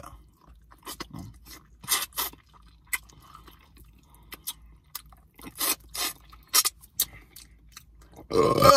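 A man biting into and chewing food close to the microphone, with scattered short crunchy crackles. A brief burst of his voice comes near the end.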